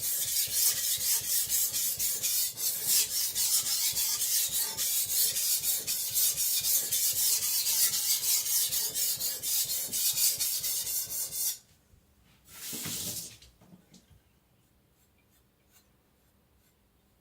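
Stainless steel Chinese cleaver blade scraped rapidly back and forth on a whetstone, sharpening the edge toward the tip. The strokes stop about 11 seconds in, followed by one brief swish and then near quiet.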